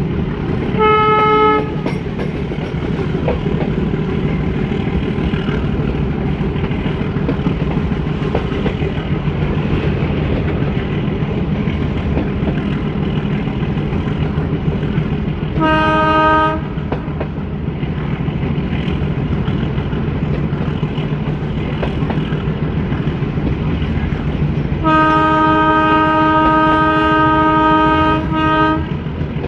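YDM4 metre-gauge diesel locomotive sounding its horn while the train runs: a short blast about a second in, another midway, and a long blast of about four seconds near the end, over the steady rumble of the moving train.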